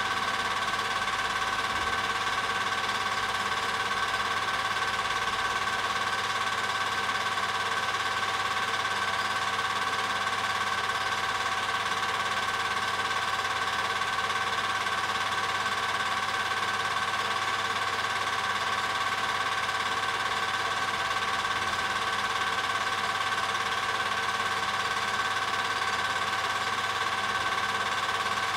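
Film projector running: a steady mechanical whir with a constant hum, unchanging throughout.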